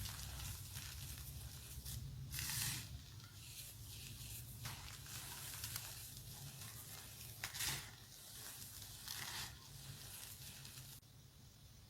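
Pink dyed gym chalk, pressed into circles, being crushed: dry crunchy crumbling with several louder crunches spread through.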